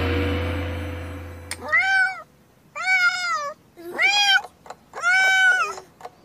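Animated cartoon cat meowing four times, each meow rising then falling in pitch. Before the first meow, a low ringing tone fades out over the first two seconds.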